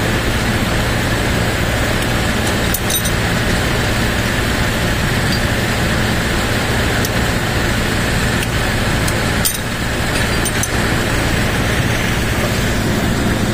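A vehicle engine running steadily at idle, a constant low hum, with a few sharp clicks about three seconds in and twice more near the two-thirds mark.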